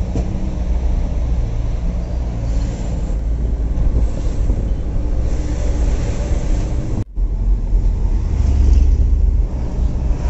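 Mitsubishi Canter HDL diesel truck heard from inside its cab while driving: a steady engine rumble with road noise. The sound cuts out for an instant about seven seconds in.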